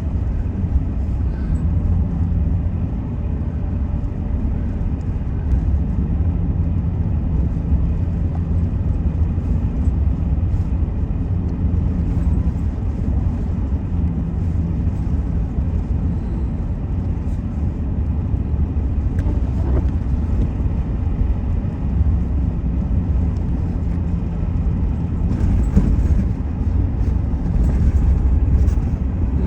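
Steady engine and road rumble of a car being driven, heard from inside the cabin. A short sharper sound comes about two-thirds of the way through, and the noise swells for a few seconds near the end.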